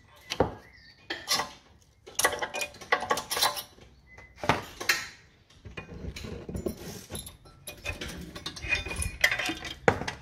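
Flat-blade screwdriver prying old rear brake pads out of the caliper bracket: irregular metallic scrapes and clinks of the tool and pads against the bracket and pad clips.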